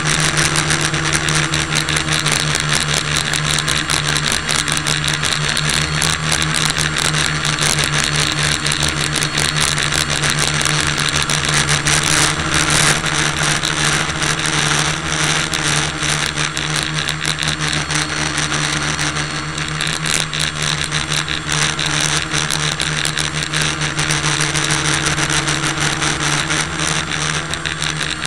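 A small motor running steadily close to the microphone: a constant low hum with a rapid buzzing rattle over it.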